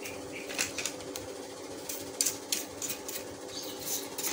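Brush bristles sweeping dust off a laptop's mainboard in short, irregular scratchy strokes, over a steady low hum.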